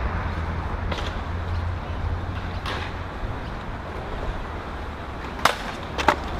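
Sharp clacks of a stunt scooter hitting concrete, the two loudest about five and a half and six seconds in, over a steady low rumble.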